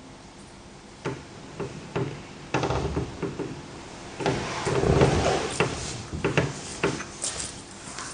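Irregular knocks, clicks and rustles, with a longer, louder stretch of rustling and low rumble a little past halfway.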